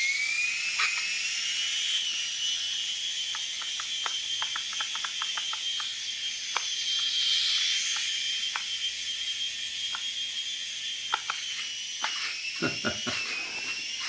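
Air Hogs Moto Frenzy RC motorbike's small electric drive motor and gearing whining at full speed after spinning up, with scattered light ticks. Near the end the whine dips in pitch and a few knocks come through.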